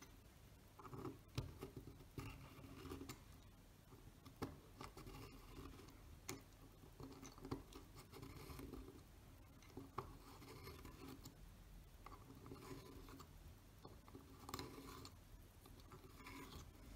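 Faint scraping of a small metal hand tool working the retaining ring of a Zeiss Ikon Contaflex IV shutter, with a few sharp light clicks of metal on metal scattered through.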